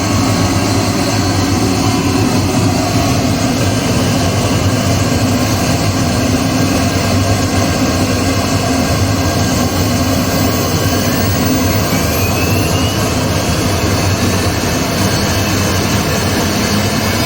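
CNC router running steadily, a loud continuous machine noise with faint steady tones, and a thin whistle rising in pitch twice in the second half.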